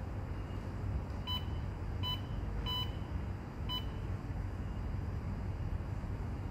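Touch-key panel of a hybrid solar inverter beeping four short times within about two and a half seconds as its buttons are pressed, over a steady low rumble.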